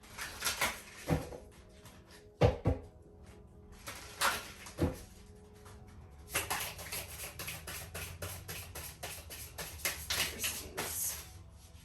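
A deck of oracle cards being handled and shuffled by hand: a few separate taps and knocks, then from about six seconds in a quick run of card clicks and flicks, over soft background music.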